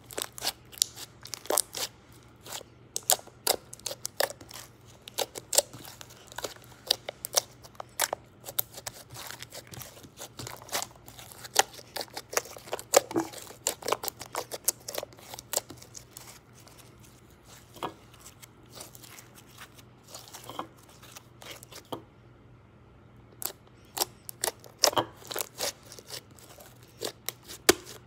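Pink slime being squeezed, stretched and poked by hand, giving off rapid, irregular wet clicks and pops as air pockets burst. The pops come thick and fast in the first half, thin out later, and stop briefly about three-quarters of the way through.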